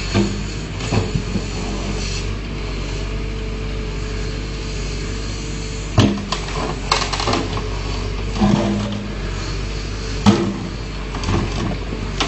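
Backhoe loader's engine running steadily while it works stone, with intermittent clatter and scraping, and two sharp knocks about six and ten seconds in.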